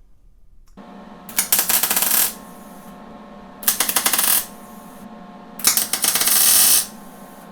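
Three bursts of rapid metallic clicking, each about a second long, over a steady hum.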